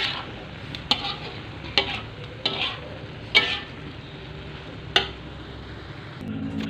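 Shrimp and green-bean stir-fry sizzling in a wok, with a spatula scraping and knocking against the pan about six times as it is stirred.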